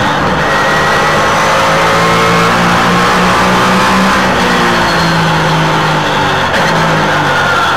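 Trans Am race car engine heard from an onboard camera, running at high revs under acceleration, its pitch climbing and falling back. There is a brief drop in the sound about six and a half seconds in, as the car nears a corner.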